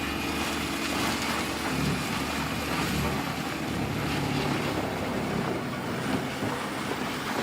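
Heavy stump-grinding machinery running steadily: a diesel engine's low drone under a dense, even mechanical noise.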